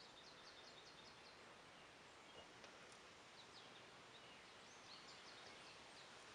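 Near silence with faint songbird trills: a run of quick high chirps at the start and again in the second half, over a low steady hiss.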